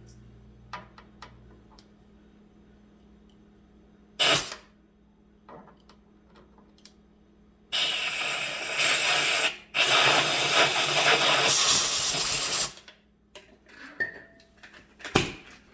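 Hissing sprays of aerosol brake cleaner through a squirter nozzle and blasts from a compressed-air blow nozzle, clearing metal shavings out of a freshly tapped hinge backing plate. A short loud hiss comes about four seconds in, then about five seconds of loud hissing with a brief break, and small clicks of handling come before and after.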